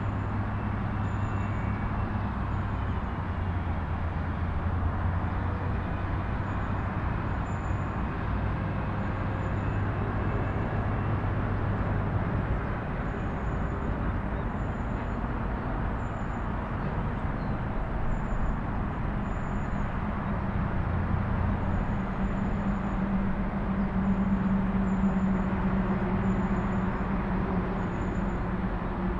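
Steady vehicle engine noise: a continuous low rumble with a hum that moves up in pitch about halfway through.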